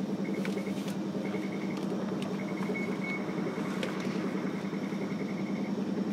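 Hiroden 700 series tram heard from inside the car: a steady low hum with a few sharp clicks.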